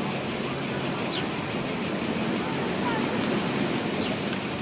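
Beach ambience: a steady wash of ocean surf under a high, fast-pulsing hiss, with a few faint short chirps.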